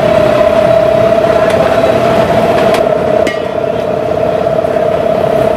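An engine running steadily at constant speed, a loud drone with a strong steady tone, with a few sharp clicks and knocks over it.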